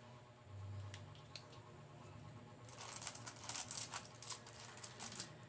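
Loose coins clinking and jingling in a bowl as a hand rummages through them, a quick run of small metallic clicks that starts about halfway through.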